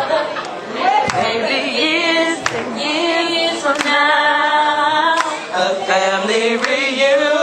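A small group of young women singing together a cappella into handheld microphones, several voices in harmony with long held notes.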